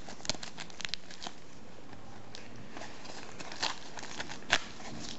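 Parcel packaging handled by hand: scattered light crinkles and clicks, with one sharper click about four and a half seconds in.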